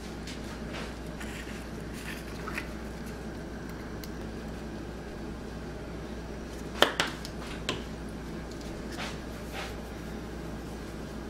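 Handling clicks from a plastic flip-top spice jar, with a sharp snap about seven seconds in as the cap is flipped open, then a couple of lighter clicks. A steady low hum runs underneath.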